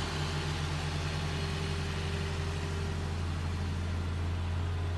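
Hitachi hydraulic excavator's diesel engine running at a steady, unchanging pitch as the machine works its boom and bucket.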